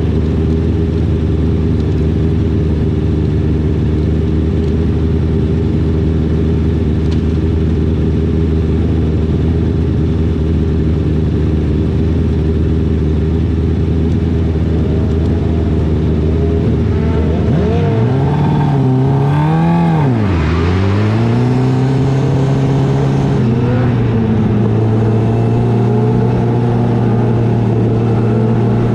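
Onboard sound of a small dirt-track race car's engine, running steadily at low revs while the car rolls slowly in line. About eighteen seconds in it is revved up and down a couple of times, then it settles at a steady higher pitch as the car speeds up around the track.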